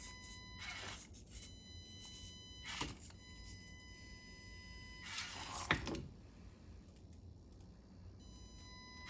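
SCX24 mini RC crawler driving, its small electric motor and gears whining in short stop-and-start runs. A few clunks and scrapes come from the truck working over terrain, loudest about five to six seconds in.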